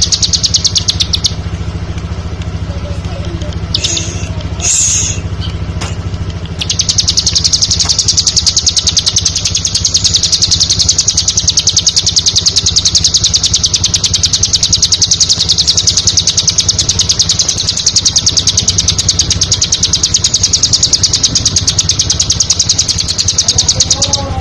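Bar-winged prinia (ciblek) singing high, rapidly repeated notes, many per second. A brief burst and a few short calls come first, then one long unbroken trill begins about seven seconds in. A steady low hum runs underneath.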